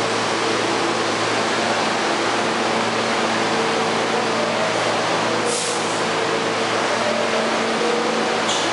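R68A subway train standing in the station with its doors open, its equipment giving a steady hum over the rushing noise of the platform. A brief hiss comes about five and a half seconds in.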